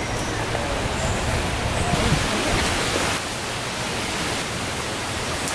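Steady, even hiss of forest ambience, a little brighter for about a second in the middle, with a few faint high chirps.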